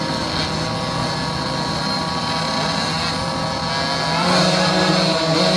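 A line of 50cc youth dirt bikes idling together at a race start, with several engines running at once. About four seconds in they rev up louder and higher as the start comes.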